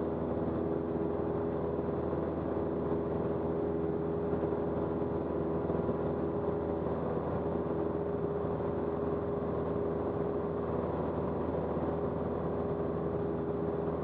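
Cessna 172's piston engine and propeller droning steadily at climb power, heard from inside the cockpit.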